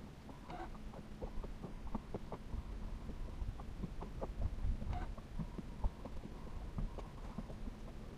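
Electric trolling motor humming steadily as it holds the boat in place on GPS spot lock, with a low rumble underneath and scattered light knocks of small waves against the aluminum hull.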